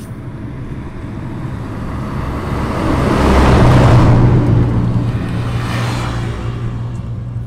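A motor vehicle passes close by: its engine hum and noise swell to a peak about halfway through, then fade away.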